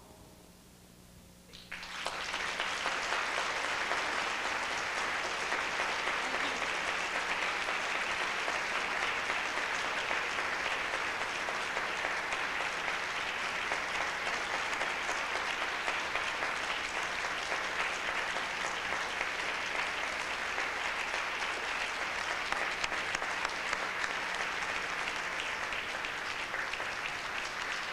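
Audience applauding. The clapping starts suddenly about two seconds in and then keeps up steadily and evenly.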